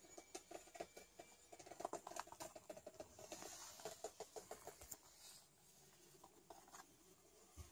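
Faint, rapid pattering of a kitten's small paws and claws ticking on a hard plank floor as it scampers about, busy for the first four seconds or so and then thinning out.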